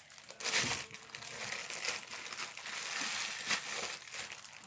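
Slime being handled and mixed by hand, giving a run of small crackles and pops, the loudest burst about half a second in.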